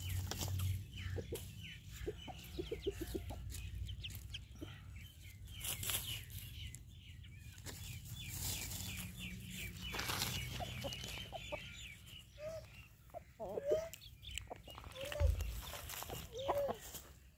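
Aseel chickens foraging: short arched clucks that repeat about once a second in the last few seconds, over scattered scratching and pecking clicks in dry dirt and litter. A quick run of high chirps comes in the middle.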